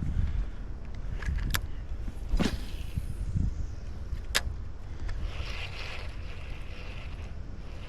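Wind rumbling on the microphone over a steady outdoor hiss, with a few sharp clicks and knocks about a second and a half, two and a half and four and a half seconds in.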